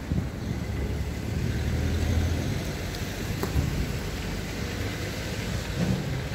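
Outdoor city street ambience: a steady low rumble of distant traffic and wind, with a single sharp tick about three and a half seconds in.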